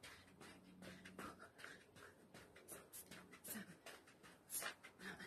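Faint, quick footfalls of trainers landing on artificial grass while running on the spot doing high knees, about three steps a second.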